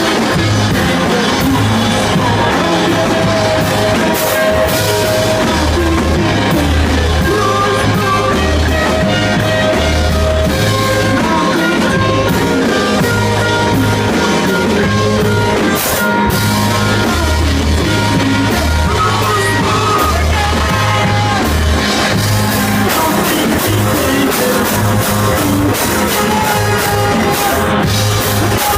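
A rock band playing live, with a drum kit, guitar and bass, and singing over them. The music is loud and continuous, with a pulsing bass line.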